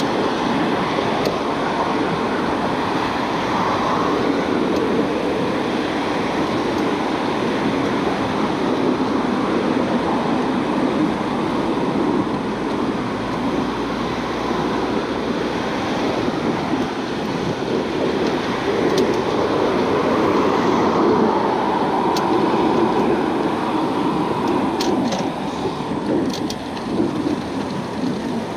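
Steady rushing noise of riding a bicycle beside a road: wind on the microphone mixed with passing car traffic.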